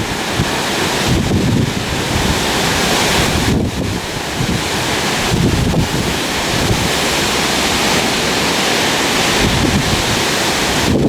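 Strong gusting wind from a deep low-pressure windstorm, rushing loudly, with gusts buffeting the microphone in irregular low thumps. The rushing eases briefly twice, a few seconds in.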